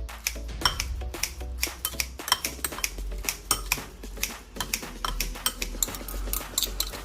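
Cutlery and dishes clinking and knocking repeatedly, many irregular sharp clinks during kitchen work.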